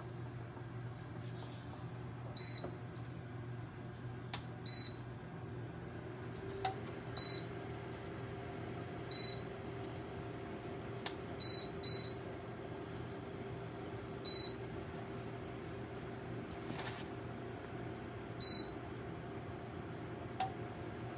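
Dreo electric space heater beeping as its controls are pressed: eight short, high beeps at uneven intervals over its steady low fan hum, with a few faint clicks.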